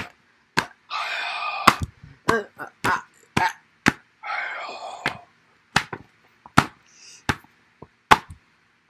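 Fighting-game hit sound effects: about a dozen sharp, irregularly spaced smacks, with two longer rough bursts about one and four seconds in.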